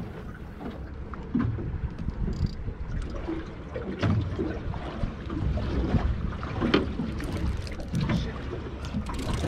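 Water slapping and lapping against the hull of a small boat at sea, with wind rumbling on the microphone and occasional soft knocks.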